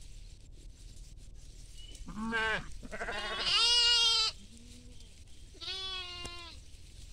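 Bleating from a mixed flock of goats and sheep: three calls, a short one about two seconds in, a longer, louder one right after, and a quieter one near the end.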